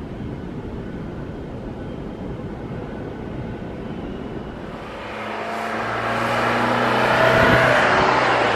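Steady background hiss, then about five seconds in the twin jet engines of an Airbus A321neo swell up, loud, with a whine over the noise, as the airliner climbs away at go-around thrust after an aborted landing in gusty wind.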